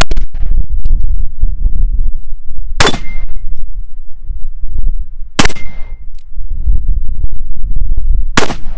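Black-powder shots from a .36 caliber 1851 Navy percussion revolver. Its chambers are filled to the top with 3F powder under a round ball, with no wad. Three shots about two and a half seconds apart, the first two followed by a brief ring from the steel target being hit.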